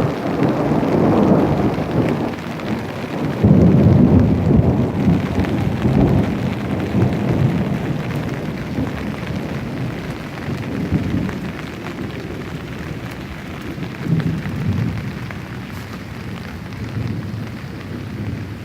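Rain falling with storm runoff water rushing out of a drainage pipe and along a ditch, a dense low rumble that is loudest about four seconds in and eases gradually.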